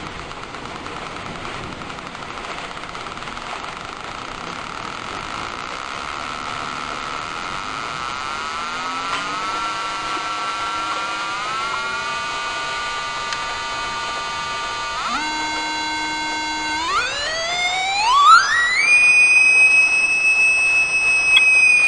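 Small speaker driven by a 555 timer oscillator circuit giving an electronic buzzing tone. The tone starts low, steps up in pitch, glides up to a high steady whistle about three quarters of the way in, and begins to fall right at the end.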